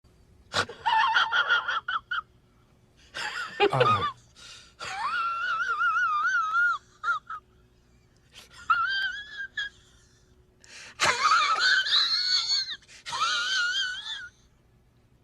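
High-pitched wheezing, squealing vocal sound in about six bursts, its pitch wavering up and down, one of them sliding steeply down.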